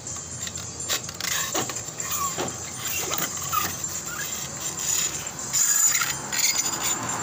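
Light metal clinks and scraping as the driven pulley and clutch assembly of a scooter's CVT is worked off its shaft by hand, with a few short squeaks in between.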